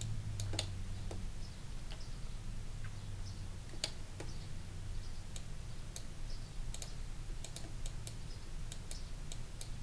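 Scattered, irregular clicks of a computer keyboard and mouse being worked, over a steady low hum.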